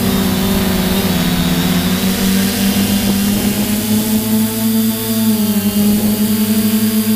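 Quadcopter drone's electric motors and propellers whining steadily over a constant hiss, the pitch dipping and then rising again a few seconds in as the motor speed changes.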